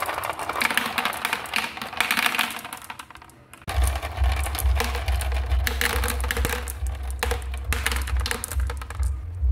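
Marbles rolling and clattering down a slope through plastic pegs and into a clear plastic dish, where they click against each other and the dish wall in quick, irregular taps. It thins out about three seconds in, then picks up again over a low steady rumble.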